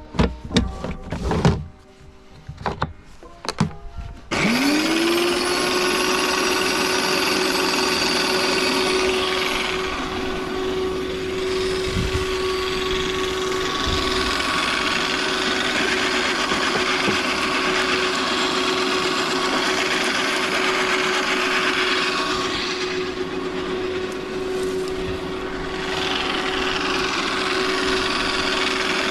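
Electric garden shredder: a few knocks and clatter as its plastic collection box is fitted, then about four seconds in the motor starts, its whine rising quickly to a steady pitch, and it runs on steadily with nothing being fed into it.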